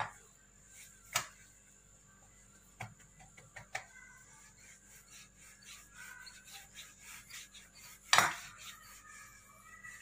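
Metal rolling pin rolling out pizza dough on a marble counter. Light clicks and a few sharp knocks as it is worked, the loudest knock about eight seconds in.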